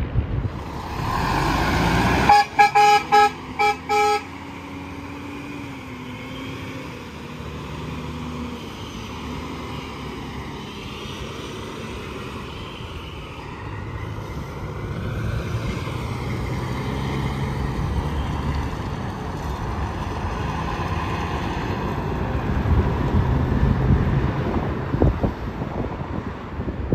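Highway traffic passing, with a truck horn honking in about five quick blasts a couple of seconds in, right after a loud rush of a vehicle going by. The tyre and engine noise of passing traffic then carries on and swells again near the end.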